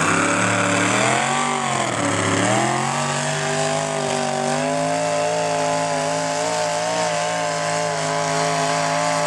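Pulling tractor's engine at high revs, hauling a weight-transfer sled down the track. The pitch climbs, sags briefly about two seconds in, then climbs again and holds high and steady.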